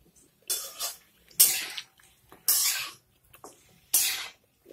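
A metal spatula stirring chicken pieces in a dry, hot kadhai, with no oil in the pan. Four strokes, about one a second, each bringing a short burst of hiss and scrape from the pan that quickly fades.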